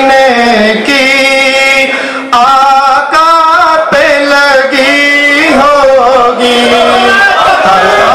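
A man singing a naat, an Urdu devotional poem, into a microphone. He holds long, wavering notes and slides between them in drawn-out melodic runs, with a brief breath pause about two seconds in.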